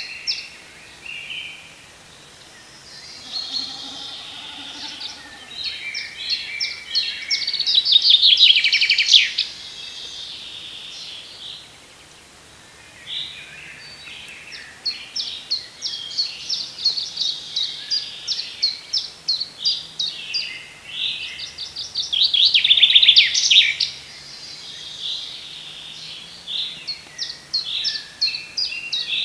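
Several songbirds singing at once in a spring chorus, with many short repeated chirping notes and two loud, fast trills, about eight and twenty-two seconds in.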